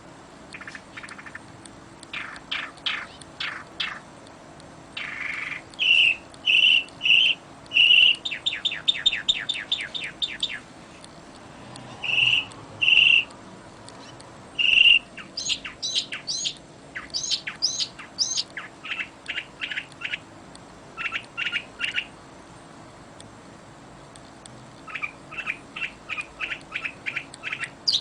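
Songbirds singing in a string of short phrases: rapid trills of quick repeated notes alternating with a few clear, held whistled notes, separated by brief pauses.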